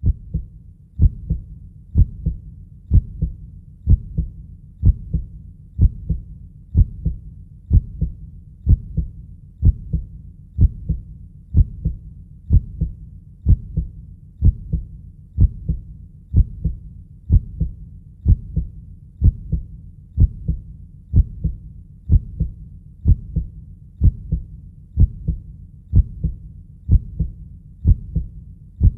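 Heartbeat sound: a steady lub-dub of paired low thumps, about one beat a second, over a low steady rumble between beats.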